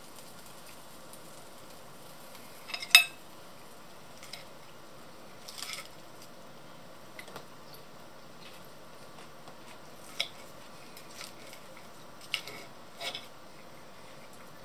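Metal cutlery clinking and scraping against a plate as food is cut and eaten: scattered short clinks, the loudest about three seconds in, with a few more later.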